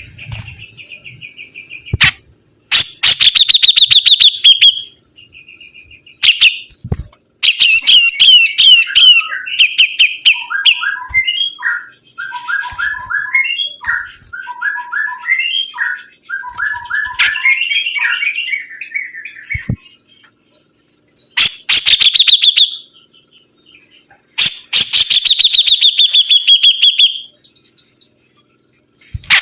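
Sibuntung songbird singing in full, constant song. Its loud, varied phrases mix fast rattling trills, chattering runs of short quick notes and a high whistle, with short pauses between.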